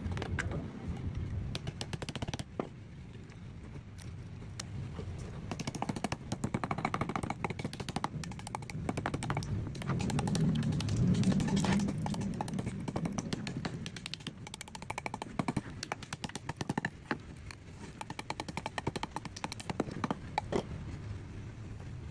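Rapid, irregular clattering and knocking of a tool working a piece of wood, over a low rumble that swells about halfway through.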